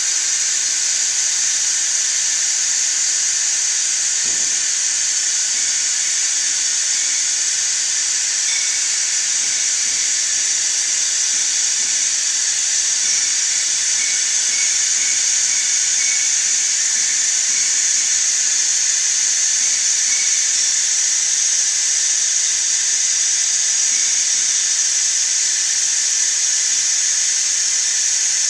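Steady high-pitched hiss of compressed air from the machine's pneumatic system, unchanging throughout.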